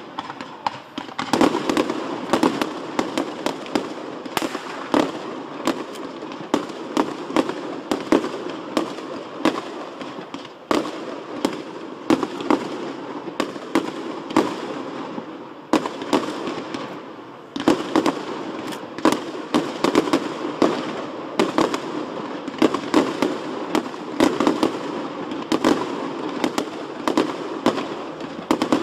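Fireworks display going off in rapid succession: a dense series of sharp bangs from bursting shells and launches over a continuous crackle and rumble. The firing thins out briefly a little past halfway, then picks up again.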